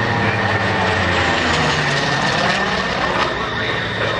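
Vought F4U Corsair's Pratt & Whitney R-2800 radial engine running as the propeller fighter makes a low pass, with a swirling, phasing sweep to the sound as it goes by. A steady high-pitched whine runs underneath.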